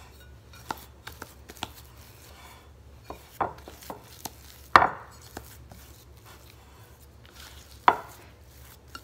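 A spatula working stiff corn masa dough in a mixing bowl: irregular knocks and scrapes against the bowl, the loudest about five seconds in and another near eight seconds.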